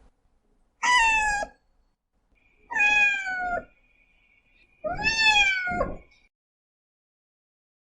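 Domestic cat meowing three times, each meow lasting under a second to about a second, with the pitch dropping at the end.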